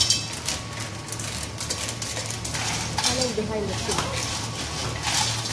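Spatula stirring shellfish in their shells around a metal cooking pot: repeated clattering and scraping of shells against each other and the pot, with a light sizzle from the hot butter.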